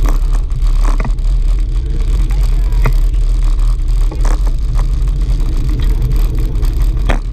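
Steady wind and road rumble on the microphone of a camera riding on a moving bicycle, with a few brief knocks from bumps or the bike's parts.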